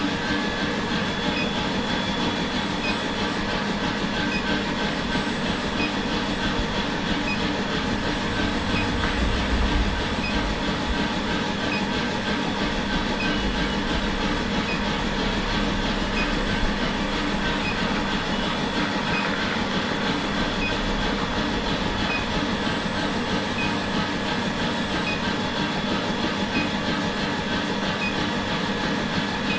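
Workshop machinery running steadily, a constant hum with a faint tick about once a second and a few brief high falling whistles.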